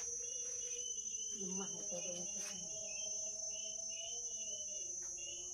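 Steady high-pitched insect drone of crickets or cicadas, with rows of short repeating chirps, and faint low voice-like sounds underneath.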